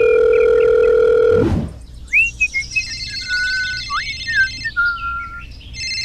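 Telephone sound effects: a steady, dial-tone-like electronic tone that cuts off about a second and a half in with a quick falling swoop, followed by chirping, bird-like tweets over a high steady ringing tone.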